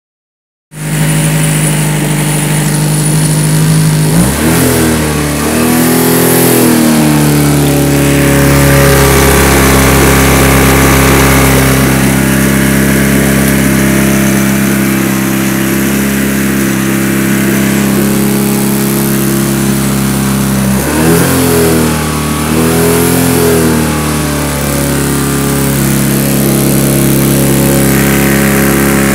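A 1987 Honda 8 hp four-stroke outboard motor running steadily out of the water. It is revved twice, about four seconds in and again about twenty-one seconds in, the pitch rising and wavering before settling back to a steady run.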